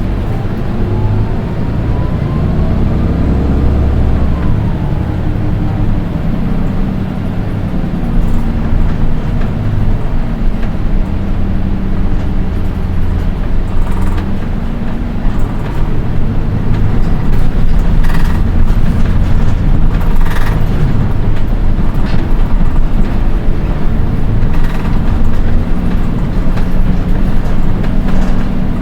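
Interior running sound of a Nissan Diesel Space Runner RM (PDG-RM820GAN) city bus under way, its diesel engine running with a steady low drone. In the first few seconds a high-pitched whine climbs and then falls away; this unit is known for an unusually shrill engine sound. A few brief rattles and knocks come through near the middle and later on.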